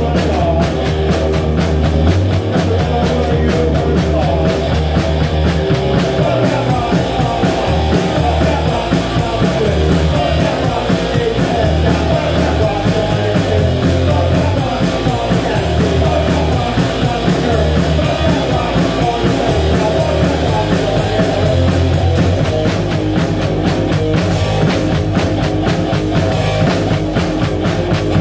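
Live rock band playing a song: electric guitar, electric bass and drum kit together at a steady loud level with a driving drumbeat.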